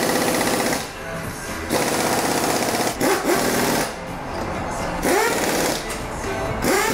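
Pneumatic impact wrench working the wheel nuts during a tire change. It fires in several short bursts of rapid hammering, some opening with a rising whine as it spins up.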